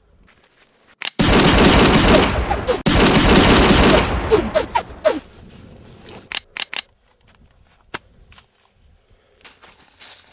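Automatic gunfire: a continuous burst lasting about three seconds, then a few single sharp shots.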